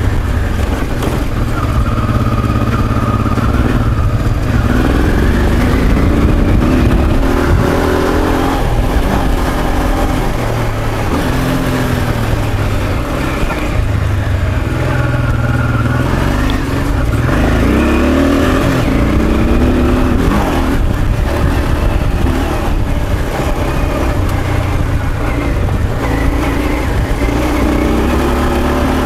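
Honda Africa Twin's V-twin engine under load on a steep dirt climb, its revs rising and falling again and again as it is ridden uphill. The bike has ignition trouble that leaves it short of power and response, which the owner hopes is just worn spark plugs.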